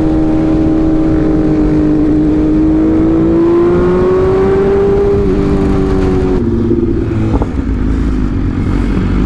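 Sport motorcycle engine running at high revs, its pitch climbing slowly and then dropping in two steps about halfway through, with a brief sharp click a little after, over a steady low rush.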